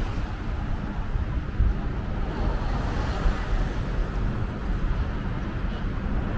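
Continuous low rumble of vehicle noise with an even hiss above it, steady throughout with no distinct events.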